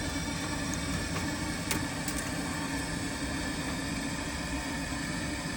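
Steady low mechanical hum with a faint click about two seconds in.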